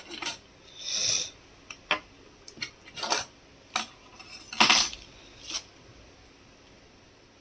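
Small hard objects clinking and tapping as they are handled and set down: a string of sharp clicks and knocks, the loudest about four and a half seconds in.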